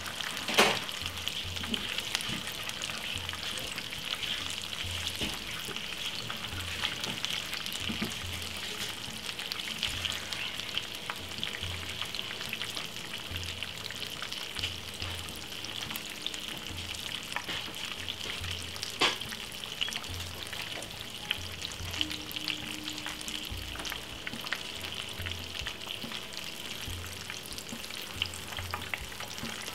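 Coated salmon pieces shallow-frying in hot oil in a frying pan: a steady sizzle with spitting crackles, and two sharper pops, the loudest about half a second in, another near the middle.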